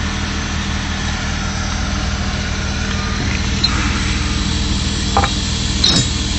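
Steady engine hum, with two sharp metal clicks near the end as a formwork tie-rod clamp is worked by hand.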